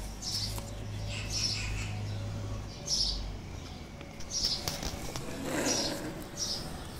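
Short high bird chirps repeating about every second, with soft clicks and rubbing of plastic interlocking building blocks being fitted together.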